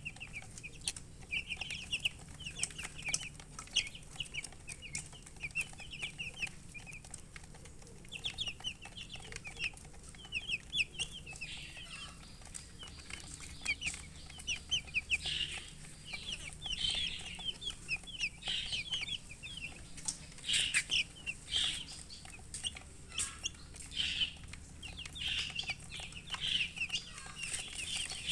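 Baby chicks peeping: a steady stream of short, high chirps, many overlapping, growing louder and busier about halfway through.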